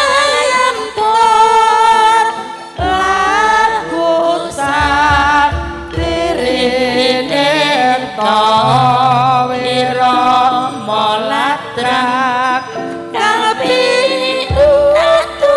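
Javanese gamelan music in lancaran form, with a sinden (female singer) carrying a wavering, ornamented vocal line over steady metallophone notes. Deep strokes sound about three seconds in and again near the end.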